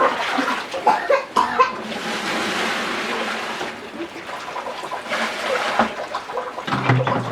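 Water splashing and pouring, in two rushing spells, with brief voices in between.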